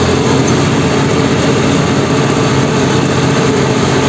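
A vehicle engine running steadily, heard from on board while driving.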